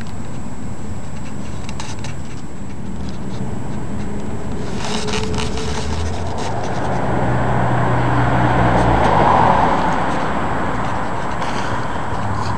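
Low, steady engine drone that swells to a peak about nine seconds in and then eases off, with a brief cluster of clicks about five seconds in.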